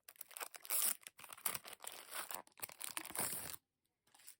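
Packaging crinkling and tearing as a diary is unwrapped and handled, a dense crackle that stops about three and a half seconds in.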